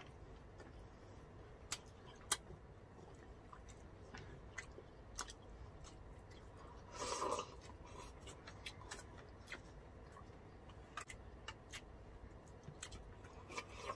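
Faint chewing and eating sounds of people at a meal, with scattered small clicks and one louder brief noise about seven seconds in.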